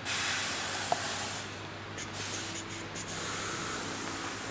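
Paint spray hissing in several bursts: a long one of about a second and a half, a short one, then a steadier stretch near the end.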